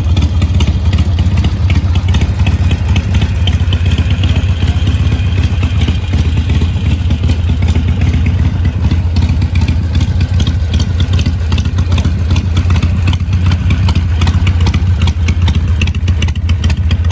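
Harley-Davidson Iron 883's air-cooled 883 cc V-twin engine idling steadily, heard close to the bike, its deep uneven pulsing firing heard through the stock exhaust.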